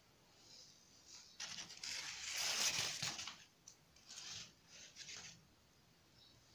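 Rough scraping and rustling noises, several scuffs in a row over about four seconds, the loudest two to three seconds in.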